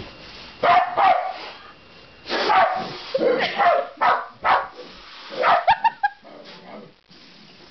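Basenji giving a string of short, sharp barks and yelps in irregular clusters: the dog is frightened by a balloon being blown up.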